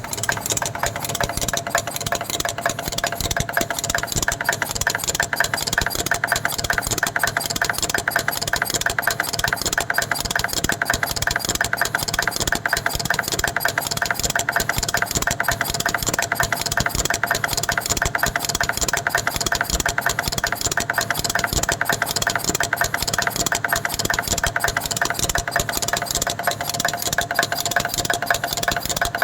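Gold chain-making machine with laser soldering running steadily: a rapid, even mechanical clatter over a constant hum.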